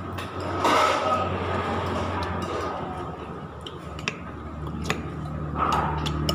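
Close-up eating sounds: fried chicken being pulled apart by hand and chewed, with a few short rustles and small clicks. A steady low hum runs underneath.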